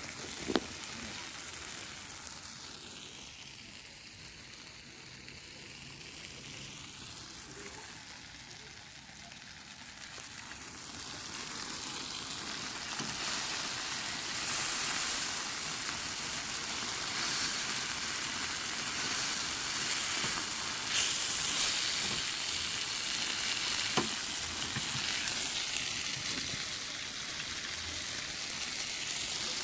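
Food sizzling in a frying pan, a steady crackling hiss that grows louder about ten seconds in, with a few sharp clicks.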